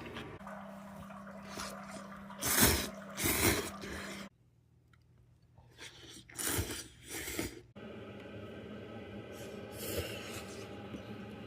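A person slurping noodles in a series of short, loud slurps, about five in all, with a low steady hum behind the first few.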